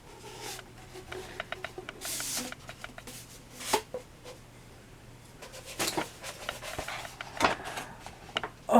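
Handling noises of working an item out of a tube: scattered small clicks and knocks, with a brief rustle about two seconds in.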